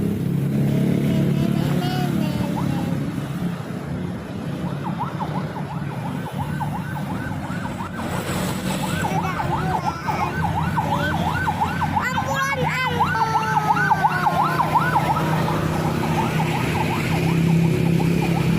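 A bus's Basuri telolet horn playing a rapid run of repeated warbling tones, about three a second, over the steady running of a bus engine.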